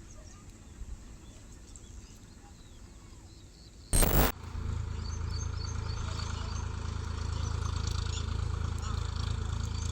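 Birds chirping over faint rural background. About four seconds in there is a brief loud crackle, then a steady low hum of an FPV quadcopter's motors takes over, with birds still chirping above it.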